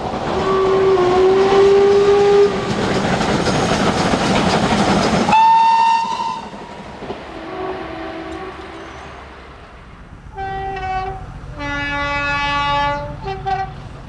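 A run of diesel train horn blasts: first a long horn note sounding over the rattle of a passing train, which cuts off abruptly about five seconds in to a short high horn note. Then a faint distant horn, and near the end a two-tone horn, a short high blast followed by a longer low one.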